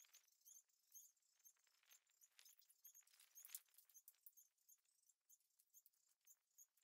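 Near silence: faint outdoor ambience with scattered light clicks and soft high chirps.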